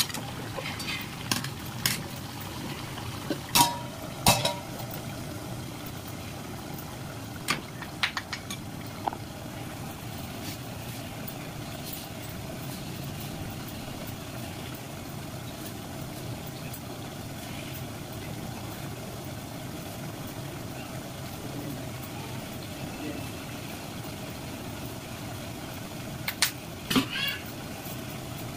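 Metal cooking utensils clinking against cookware several times, the loudest strikes about four seconds in and another cluster near the end, over a steady low background hum.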